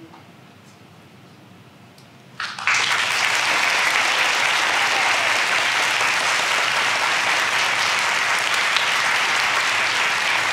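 A short hush, then about two and a half seconds in an audience starts applauding, and the clapping goes on steadily.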